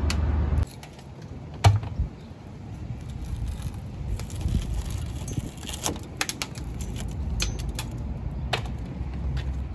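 Sharp clicks and small clinks of broken glass fragments and hard debris being picked and knocked out of a van's empty rear window frame by a gloved hand, one loud click a couple of seconds in and a scatter of lighter ones later. A low rumble stops within the first second.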